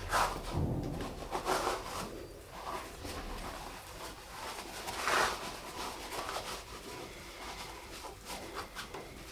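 Scattered light knocks, clicks and a few short scrapes of tools and case parts being handled at a workbench, with the loudest scrape about five seconds in.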